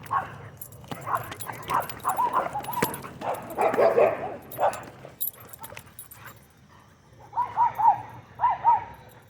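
Dog barking and yipping in short, quick calls, in two spells with a lull in between.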